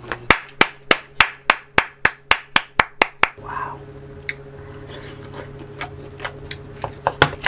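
Close-up chewing of a bite of steak: a quick, even series of sharp wet smacks, about three or four a second, for about three seconds, then only scattered softer clicks.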